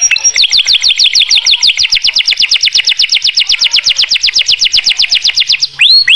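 Canary singing: a long, fast trill of quickly repeated falling whistled notes, then a brief break and a few slower swooping notes near the end.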